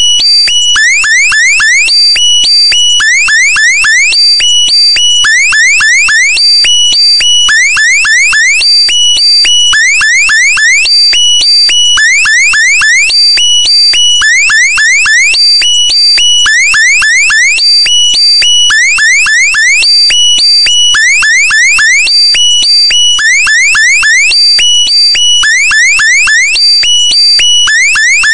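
Electronic alarm sound effect: a loud, synthetic cycle of several quick rising sweeps over steady high tones, repeating about every 1.3 seconds.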